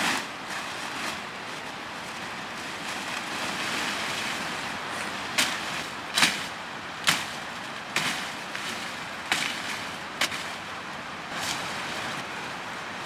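Rustling of leafy cut branches being gathered and handled, with about six sharp cracks from the branches being worked in the second half, roughly one a second.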